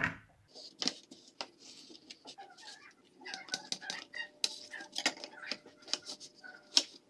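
Large kitchen knife cutting through soft chocolate sponge cake on a metal baking tray, its blade scraping and clicking against the tray, with a few sharper knocks as the cut layers are handled and stacked.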